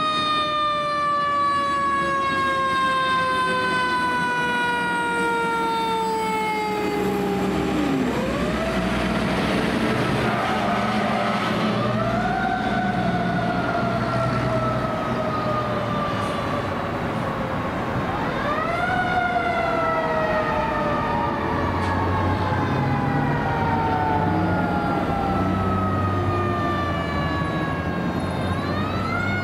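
Federal Signal Q mechanical sirens on fire trucks, winding up steeply and then slowly coasting down in pitch, over and over. The rises come about 8, 12 and 19 seconds in and again near the end, with two sirens overlapping at times. Diesel truck engines rumble underneath as the trucks pass.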